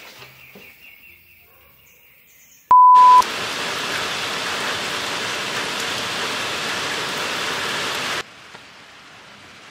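A short, loud electronic beep about three seconds in, then steady heavy rain falling. Near the end the rain cuts off abruptly to a much fainter rain hiss.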